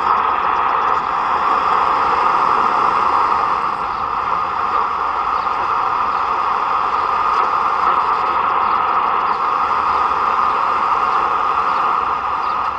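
Toshiba F11 analog portable shortwave receiver on the 13-metre (21 MHz) band, putting out a steady hiss of static from its speaker with no station coming through: the band is empty.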